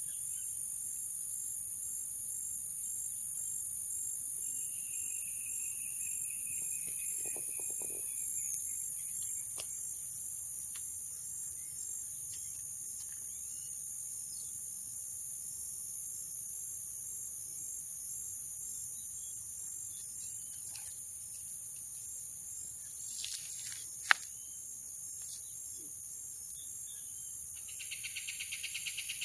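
Steady high-pitched chorus of insects, with a short whistled call about five seconds in. A single sharp click comes a few seconds before the end, and near the end a second, lower pulsing call joins in.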